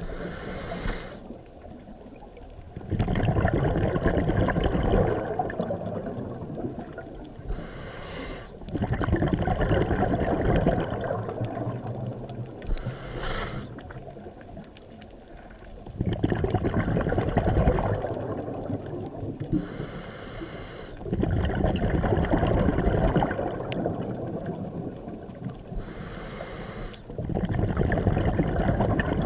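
Scuba diver breathing through a regulator underwater: a short hissing inhale, then a longer rush of exhaled bubbles, repeating about every six seconds, five breaths in all.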